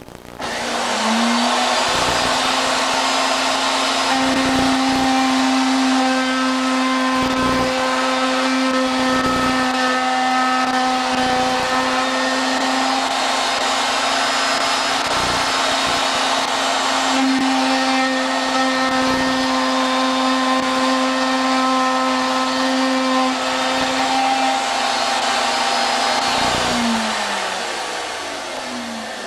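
Table-mounted router switched on, spinning up to a steady whine about a second in and running for about 25 seconds, louder during two stretches as a board held against the fence is fed into the bit, first one face and then the other. It spins down after switch-off near the end.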